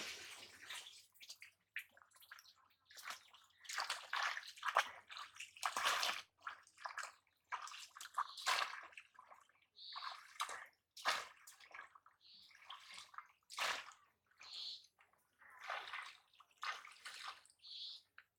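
Shallow water splashing and sloshing in a string of irregular bursts, about one every second or two, as a man wades and pushes a bamboo polo fish trap down into the water.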